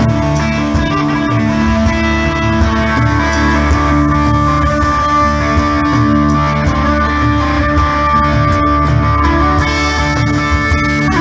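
Live blues-rock from a guitar-and-drums duo, the electric guitar to the fore over the drums, loud and steady as heard through the PA from the crowd.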